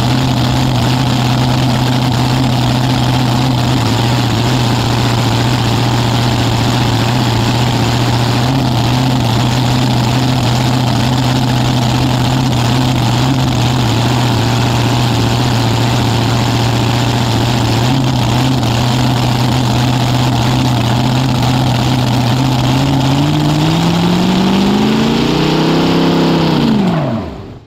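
Nitro V8 dragster engine with open zoomie headers running steadily at low revs. About 23 seconds in the revs climb for a few seconds, then the engine is shut off and winds down to a stop near the end.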